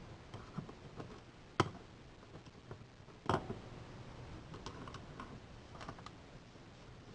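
Small metallic clicks and clacks of a Russwin mortise lock's latch mechanism being worked by hand, with a sharp click about a second and a half in and another, with a brief ring, about three seconds in.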